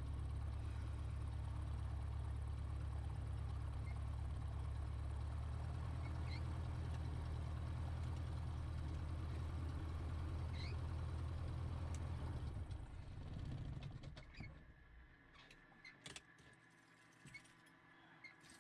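Light aircraft's piston engine idling, heard from inside the cockpit, then shut down about thirteen seconds in. It runs down over a second or so and goes quiet as the propeller stops, followed by a few faint clicks.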